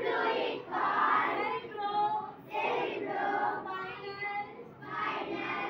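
A class of schoolchildren reciting together in unison in a sing-song chant, in short phrases about a second apart.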